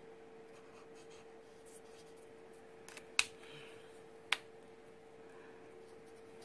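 Faint scratching of a Copic alcohol marker's tip on stamped cardstock over a steady low hum, with two sharp clicks about a second apart in the middle.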